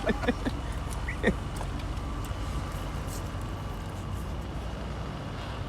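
Steady outdoor background noise, with a few faint short sounds in the first second and a half.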